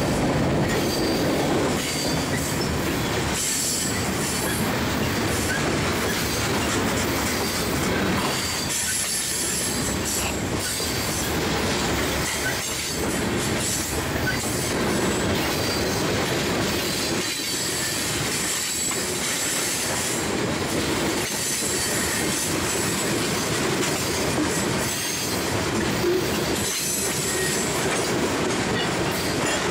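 Freight cars, covered hoppers and then tank cars, rolling past at close range: a steady rumble of steel wheels on rail with clicks over the rail joints, and high-pitched wheel squeal that comes and goes.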